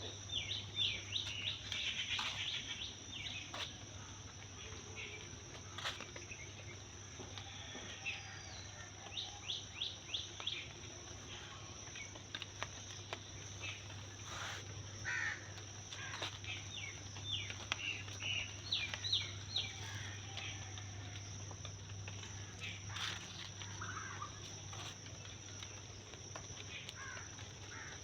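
Birds calling with many short, repeated chirps over a steady, high-pitched insect drone, with a low steady hum underneath.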